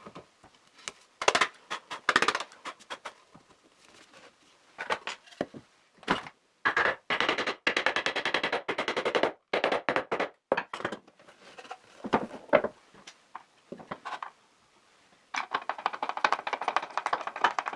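Knocks and clatter of melamine-faced particle board panels being fitted together over wooden dowels, with a fast rattling run of taps about a third of the way in. Near the end, a steady rasping as a hand screwdriver drives a confirmat screw into the chipboard.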